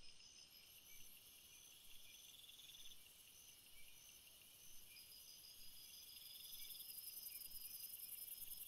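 Near silence, with a faint high-pitched chirping that repeats about twice a second. A faint high hiss fades in over the last few seconds.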